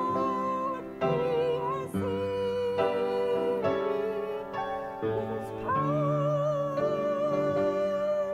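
Church music: a solo voice singing long held notes with vibrato over a keyboard accompaniment whose chords change about once a second.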